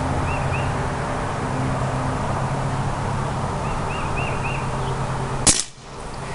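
Steady low mechanical hum with a few faint bird chirps, then about five and a half seconds in a single sharp pop: a shot from an Umarex Legends Cowboy lever-action CO2 BB rifle. The hum drops away right after the shot.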